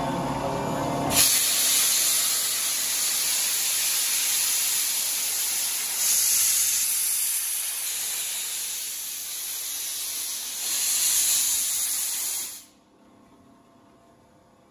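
JNR Class C61 steam locomotive C61 20 venting steam: a loud, steady hiss that starts suddenly about a second in, swells twice, and cuts off abruptly about two seconds before the end.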